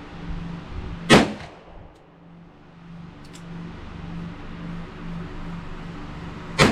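Two shots from a Smith & Wesson Model 625-4 .45 ACP revolver, about five and a half seconds apart, each a sharp crack with a short echo, over a steady low hum and a fainter distant shot between them.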